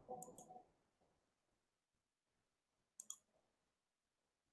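Near silence broken by faint computer mouse clicks: a quick pair of clicks near the start and another pair about three seconds in.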